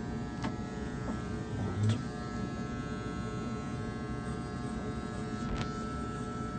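Electric hair clippers running with a steady buzz, with a few faint clicks and a short low thump about two seconds in.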